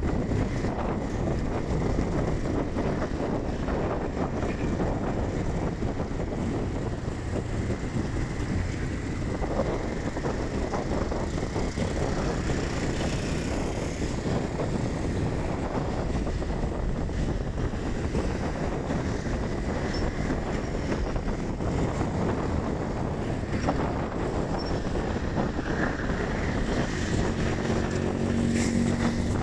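Wind rushing over the microphone with steady road and engine noise from a moving vehicle in traffic. A low engine hum comes up near the end.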